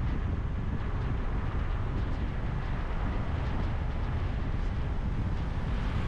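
Steady driving noise from a car moving along a paved road: a constant low rumble of tyres and engine, mixed with wind on the microphone.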